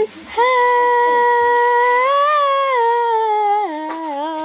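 A girl's voice singing unaccompanied, holding one long steady note that lifts slightly in the middle. Near the end it drops to a lower note with a wavering pitch.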